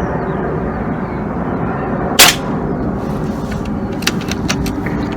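A single air rifle shot, one sharp crack a little over two seconds in, followed by a few small clicks over a steady background rumble.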